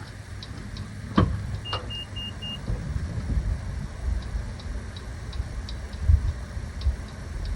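Wind rumbling on the microphone, with a sharp knock about a second in. Just after it comes a quick run of four short, high, evenly spaced beeps, and faint ticks repeat at roughly three a second through the latter part.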